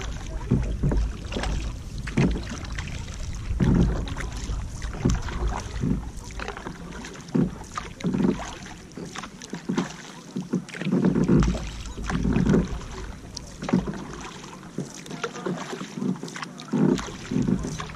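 Kayak paddle strokes: the blades dipping and splashing every second or two, with water dripping and lapping against the plastic hull. Wind rumbles on the microphone through roughly the first half.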